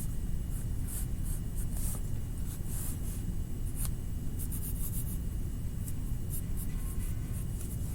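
Drawing on paper: short, irregular scratchy strokes of a pen or marker as lines are drawn, over a steady low hum.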